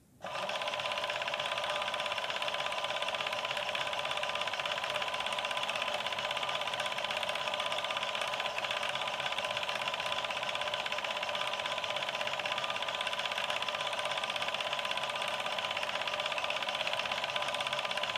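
Industrial overlock (serger) sewing machine starting up and running at a steady high speed, stitching a zigzag picot edge along cloth with a fast, even stitch rhythm.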